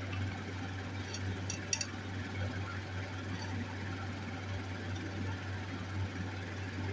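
A few light metallic clinks of small silver pieces being handled, about a second and a half in, over a steady low hum.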